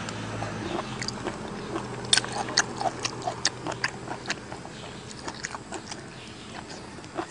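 Close-up mouth sounds of a man eating raw shrimp: wet sucking, lip smacks and chewing clicks, sharpest and most frequent between about two and three and a half seconds in.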